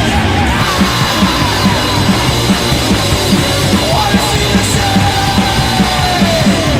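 A rock band's rehearsal demo recording: a full band playing with a fast, steady drum beat, and a long held note that bends down in pitch near the end.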